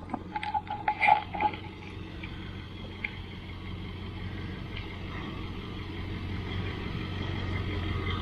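Four-wheel-drive vehicle's engine running as it moves off, growing slowly louder, after a few knocks and clicks in the first second and a half.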